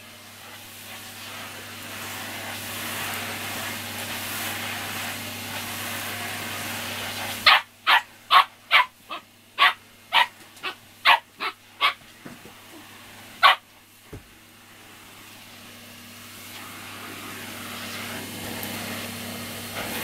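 Vacuum cleaner running with a steady hum, which stops about seven seconds in as a husky puppy barks about ten times in quick succession, then once more a second later. Near the middle the vacuum starts up again, its noise building steadily.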